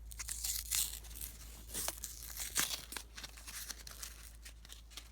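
Old tape being peeled and torn off a rolled-up paper note, with the paper crinkling as it is opened in a series of short crackles.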